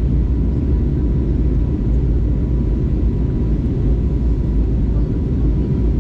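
Airbus A320neo cabin noise in flight: a steady low rumble of airflow and engines heard from a window seat, with a faint steady whine above it.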